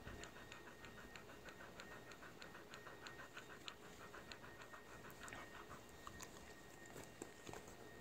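Dog panting rapidly and faintly, about five breaths a second. The panting fades out about five seconds in, leaving a few soft clicks.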